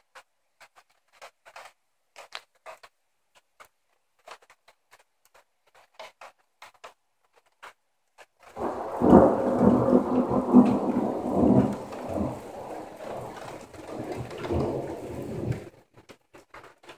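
Scattered faint ticks, then a little past halfway a sudden peal of thunder that rumbles for about seven seconds before dying away.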